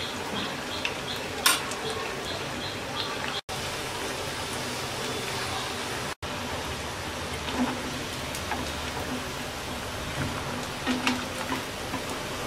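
Potato pakoras deep-frying in hot oil, with a steady sizzle. A metal slotted spoon clicks against the pan: once sharply about a second and a half in, then several times near the end as the pakoras are stirred and lifted out. The sizzle cuts out for an instant twice.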